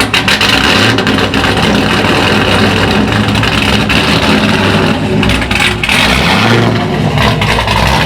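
C5 Corvette's LS V8 with a BTR Stage 3 camshaft, long-tube headers and Corsa Xtreme exhaust, running loud just after being started. It has an uneven, choppy idle with irregular pulses, the lope of the big cam.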